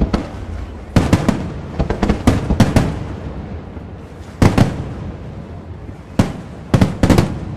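Aerial firework shells bursting: a string of loud, sharp bangs in clusters, about a second in, around two to three seconds, at four and a half seconds and again near the end, with a low rolling rumble between them.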